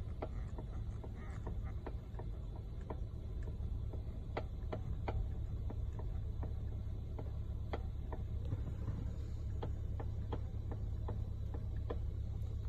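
Abnormal clicking from a steering wheel: sharp, irregular clicks about one or two a second over a steady low hum.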